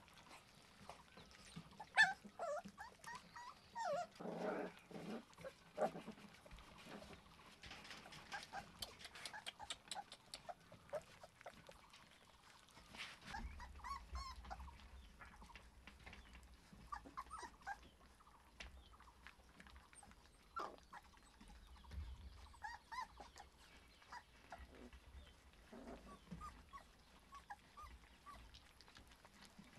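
Four-week-old Rottweiler puppies eating raw chicken: small wet chewing and smacking clicks, with short high puppy whimpers and squeaks now and then, most of them in the first half.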